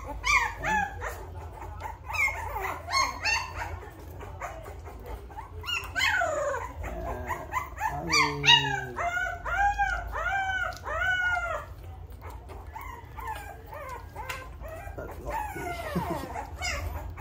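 Young American bully puppy whining and crying in high, arching squeals, with a quick string of about five cries in the middle.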